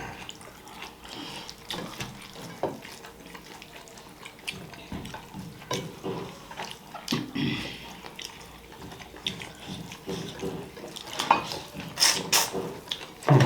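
Wet chewing and mouth-smacking sounds of someone eating fish curry with rice, short scattered clicks and smacks, a few louder ones near the end.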